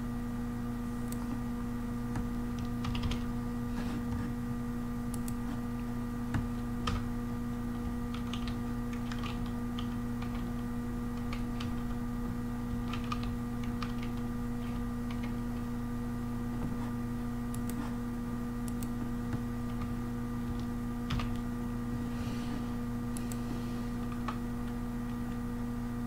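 Computer keyboard being typed on in scattered, irregular key clicks, over a steady electrical hum.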